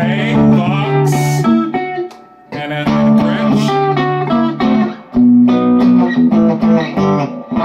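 Gretsch Electromatic semi-hollow electric guitar played through an amplifier: a few phrases of chords and single notes, with short pauses about two and a half and five seconds in.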